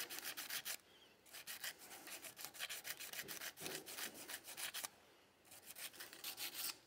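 Rapid short hand strokes of 240-grit abrasive paper rubbing on the steel of a revolver grip frame, smoothing tool marks. The rubbing comes in three runs, stopping briefly about a second in and again near five seconds.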